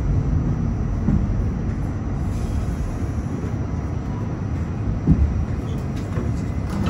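R68 subway car heard from inside, slowing into a station and coming to a stop, a steady low rumble of wheels and running gear. A single louder thump about five seconds in.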